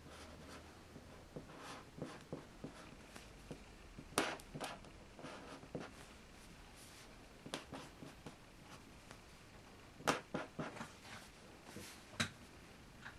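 Two felt-tip pens drawing on paper at once: a run of short, irregular pen strokes and taps, the loudest about four seconds in and again about ten and twelve seconds in.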